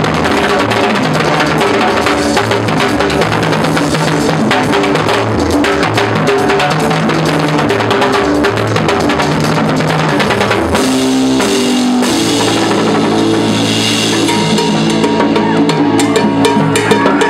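Timbales played with sticks in a run of fast strikes, with a live band's shifting bass notes underneath. The band grows fuller and more sustained a little past halfway.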